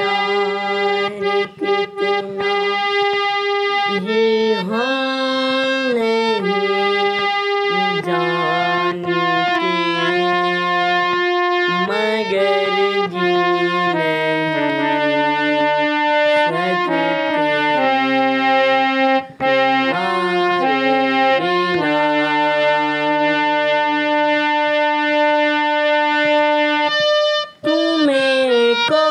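Harmonium playing a melody over held reed notes, with a boy singing along.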